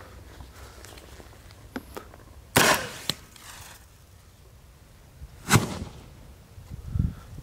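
37 mm launcher firing a 3D-printed fin-stabilized projectile: one sharp bang about two and a half seconds in, then a second, shorter bang about three seconds later.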